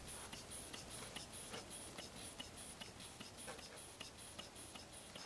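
Hand bulb pump squeezed over and over, a faint, even clicking about two to three times a second, as it pumps air into an inflatable sleeping pad to raise its pressure toward 4 to 5 PSI.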